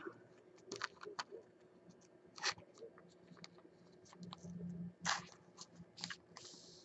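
Faint, scattered clicks and scrapes of a trading card being handled between fingers, with a short brushing sound near the end.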